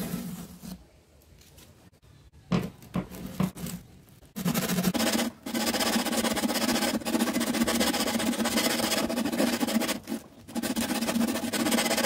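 A few sharp knocks, then from about four seconds in a handheld electric power tool's motor runs at a steady speed, in three stretches with two short breaks.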